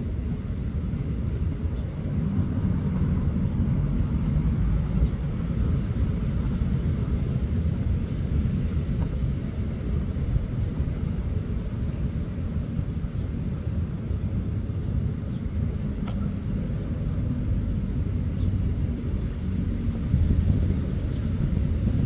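Steady low rumble of outdoor background noise, with no distinct calls or other events standing out.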